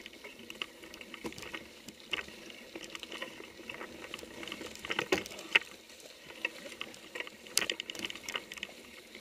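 Mountain bike rolling slowly over a muddy, leaf-strewn trail: irregular rattles, clicks and knocks from the bike and its tyres, carried through the handlebar camera mount, with a couple of sharper knocks about five and seven and a half seconds in.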